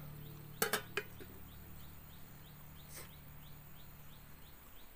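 Faint short high chirps repeating about three times a second over a low steady hum, with a pair of sharp knocks a little over half a second in and another about three seconds in.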